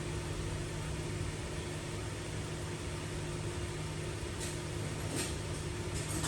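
A 2008 Dodge Caravan's 3.3 L V6 idling steadily, with a few faint ticks in the second half. The engine misfires intermittently on cylinder 3, which the mechanic puts down to a worn or badly seated intake valve.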